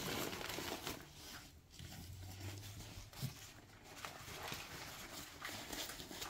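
Faint rustling of a suitcase's fabric lining and divider panel being handled, with a few soft clicks and one sharper tick about three seconds in.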